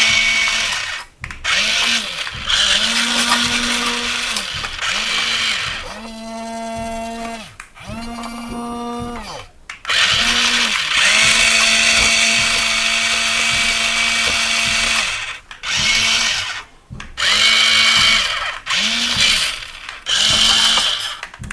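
Small electric motor and plastic gearbox of a toy remote-control vehicle whirring in about a dozen short bursts, each one spinning up and winding down in pitch, with one longer run of about five seconds in the middle.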